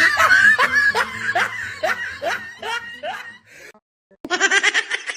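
A person laughing in a series of short snickers, each rising in pitch, about two a second. After a brief pause comes a quicker burst of laughter near the end.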